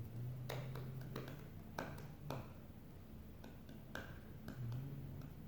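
A few light clicks and taps, scattered irregularly, over a faint low drone.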